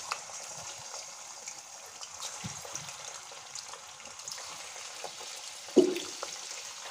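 Raw chicken pieces frying in hot oil in a karahi: a steady sizzle with scattered small crackles as more pieces go into the oil. There is a single louder thump about six seconds in.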